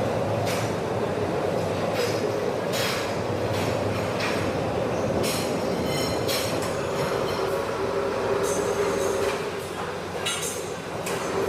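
TIG welding arc on stainless steel: a steady buzzing hum with scattered sharp clicks.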